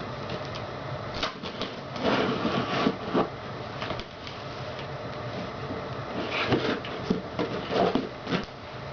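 A cardboard shipping box being handled and shifted: irregular rustling, scraping and bumping in two bursts, about two seconds in and again past the six-second mark, over a steady low hum.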